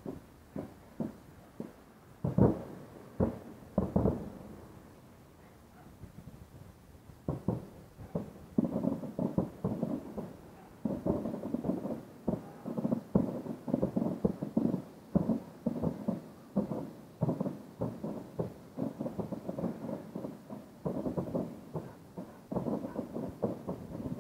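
Distant fireworks exploding over the sea. Three loud booms come a couple of seconds in, then a short lull, then a fast run of dull bangs, several a second.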